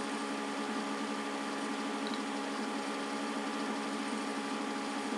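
Steady background hum with a few held tones over a faint hiss: room tone.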